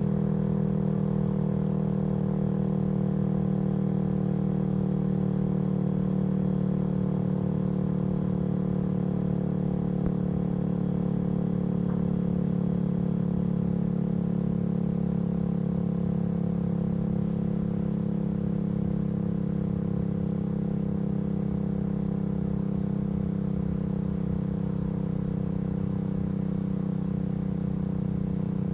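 Steady low mechanical drone made of several pitches held together, the lowest the loudest, with a fast flutter running through it. The pitch stays level, with no rise or fall.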